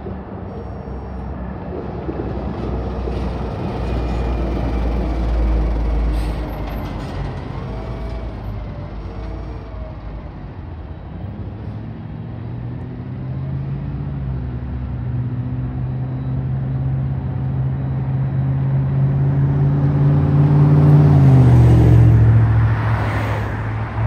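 Diesel engine of a ready-mix concrete mixer truck pulling through traffic, its note climbing slowly as it accelerates, then dropping near the end as it passes at its loudest.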